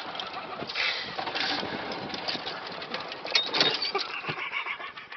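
Golf buggy running across the course, with an uneven noisy rush and irregular rattles and knocks, louder bursts about a second and a half in and again around three and a half seconds in.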